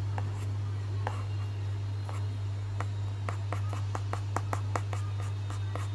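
A stylus tapping on a Samsung Galaxy Tab A7 screen: a string of light clicks, coming quickest, about three a second, in the second half. Under the taps runs a steady low hum.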